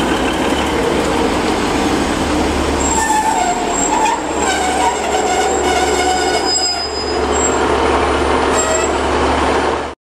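Two-coach diesel multiple unit pulling out and running close past the platform, with steady rumble and rail noise. From about three seconds in, its wheels squeal in high ringing tones that come and go. The sound cuts off abruptly near the end.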